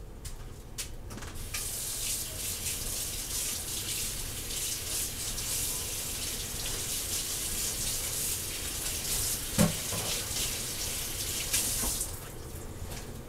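Kitchen tap running water into a sink for about ten seconds, then shut off, with a single clunk near the end.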